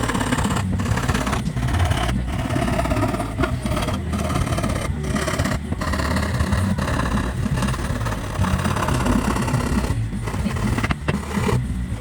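Hand saw cutting plywood in repeated rasping strokes, each broken by a brief pause where the stroke turns, over a steady low rumble.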